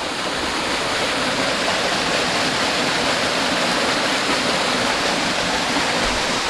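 Flowing water rushing steadily over rocks, a loud even rush with no break.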